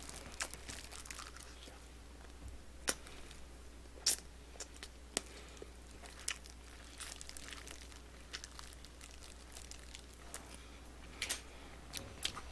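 A person chewing sweet-glazed Korean fried chicken (dakgangjeong) close to the microphone: scattered faint smacks and crunches with light crinkling, over a faint low hum.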